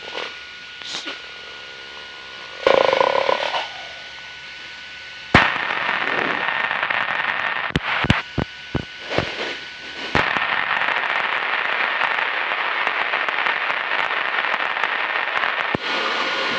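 Aviation radio static over the aircraft intercom. A brief burst comes about three seconds in. Then a loud hiss of an open, wordless transmission begins, broken by several sharp clicks as it keys on and off, and runs until shortly before the end.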